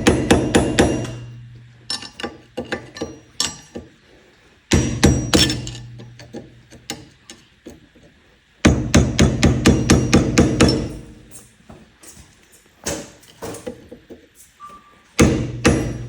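Rapid metallic hammering in four bursts, each a quick run of sharp strikes that then fades out, from tool work on the ATV's rear hub and brake rotor.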